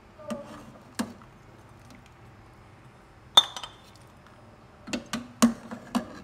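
Steel ladle clinking against a stainless steel pot and a ceramic bowl while soup is ladled out: scattered knocks, the loudest about three and a half seconds in with a brief ring, then a quick run of clinks near the end.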